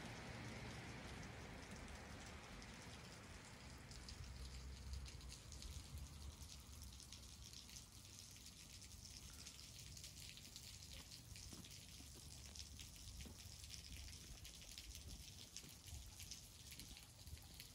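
Faint light rain pattering: many small, irregular drop ticks over a low rumble.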